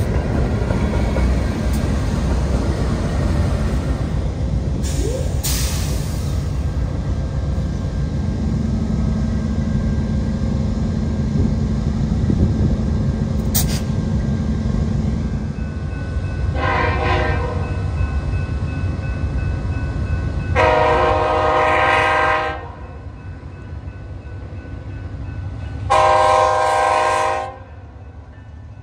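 A freight train rolls past with a steady low rumble and a couple of clanks. Over the second half a diesel locomotive's air horn sounds three blasts, the middle one the longest.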